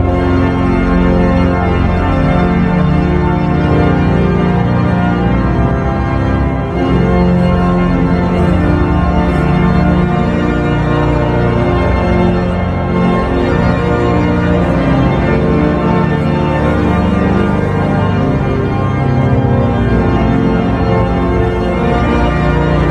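Church pipe organ playing loud, sustained chords, with no break.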